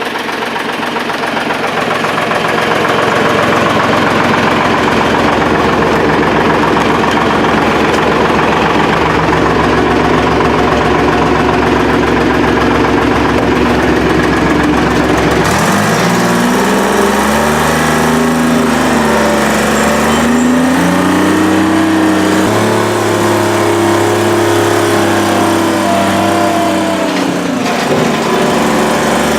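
A log skidder's diesel engine running steadily in below-zero cold, shortly after a hard start. About halfway through, a chainsaw takes over, its engine speed rising and falling again and again as it cuts.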